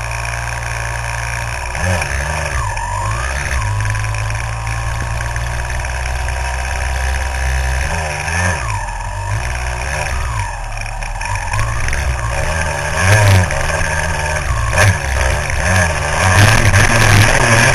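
1999 Kawasaki KX250's 250cc two-stroke single-cylinder engine revving up and down as the dirt bike is ridden, its pitch rising and falling repeatedly. It gets louder and harder-worked over the last several seconds.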